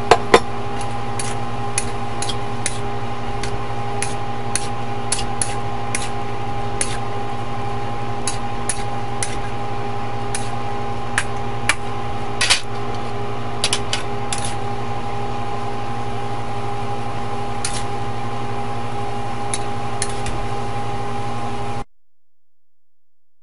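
Metal spatula clanking and scraping against a carbon-steel wok as noodles, vegetables and beef are stir-fried, with two loud clanks at the start and scattered clicks after, over a steady mechanical hum. Everything cuts off suddenly near the end.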